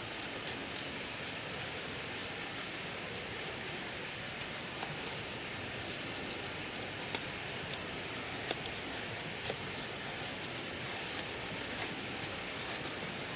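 A VG-10 slicer knife shaving curls off a stick of wood to make a feather stick: many short, uneven scraping strokes with sharp clicks as the blade catches and cuts through.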